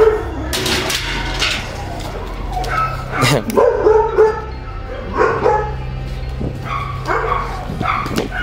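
A dog barking repeatedly in short bursts, over a steady low hum.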